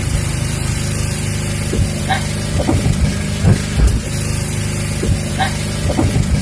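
An engine running steadily at an even, low hum, with faint voices in the background.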